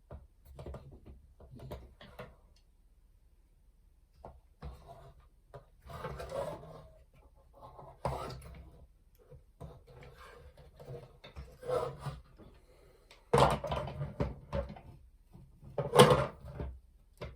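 Plastic kit parts being handled and pushed together: irregular rubbing, scraping and clicking as a piece is worked into place without fitting, with two louder knocks near the end.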